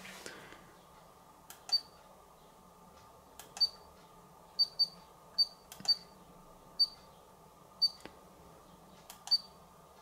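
Nine short high electronic beeps at uneven intervals, several led by a faint click, as a monitor's on-screen menu buttons are pressed.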